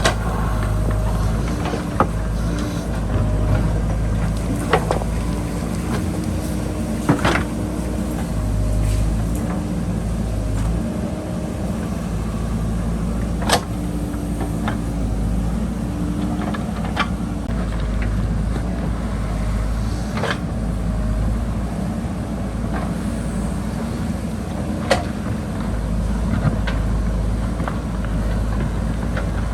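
JCB backhoe loader's diesel engine running under working load, its pitch rising and falling as the hydraulics work. Sharp knocks every few seconds come from the digging, as the bucket strikes rock and stones.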